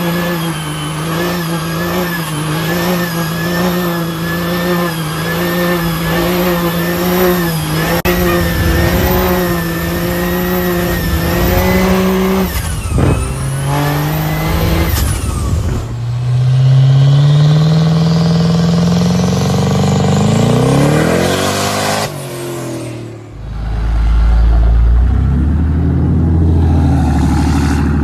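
Diesel pickup truck engines in a run of short clips. First a steady engine drone, then after a cut an engine revving up with its pitch climbing for several seconds alongside a rising high whistle, and finally a deep low rumble after another cut.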